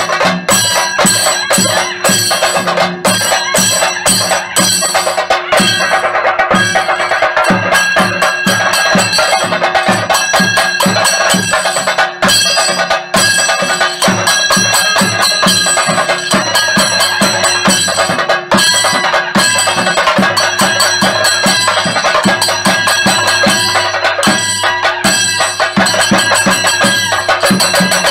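Theyyam chenda drums beaten in a fast, dense, unbroken rhythm, with a steady reedy piping tone held over the drumming.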